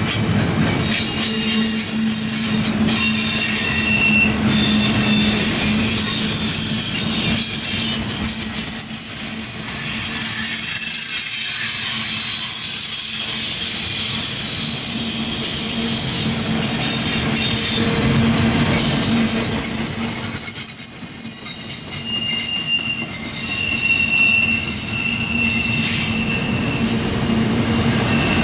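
Double-stack container train rolling past, its cars' steel wheels on the rails making a steady rumble, with thin high-pitched wheel squeal coming and going over it.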